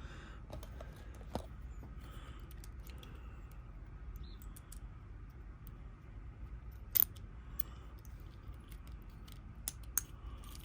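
Faint metal clicks and light scraping from hand work on a Kwikset lock cylinder as it is reverse-shimmed, with one sharper click about seven seconds in.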